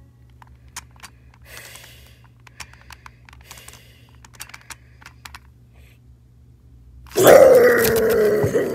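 Light clicks and rustling of plush toys being handled, then about seven seconds in a sudden loud, drawn-out cry that holds a pitch and falls slightly.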